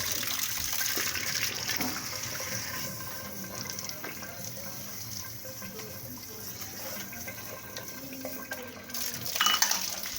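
Water running from a tap with a steady splashing hiss, heavier at first, then a brief louder rush about nine and a half seconds in.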